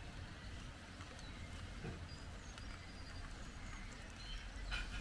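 Thunderstorm ambience: a steady hiss of rain with a few faint bird chirps, and a low rumble of thunder that swells near the end.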